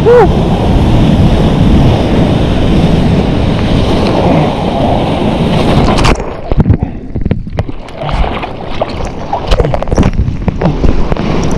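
Wind and surf rushing on the microphone. About six seconds in the hiss drops away and the sound turns muffled, with irregular knocks and splashes of water.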